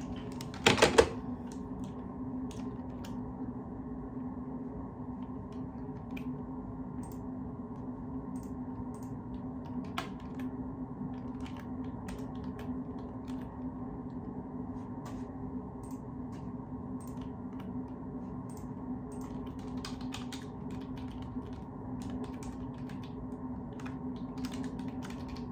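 Typing on a computer keyboard: scattered key clicks over a steady low hum, with a louder double clack about a second in.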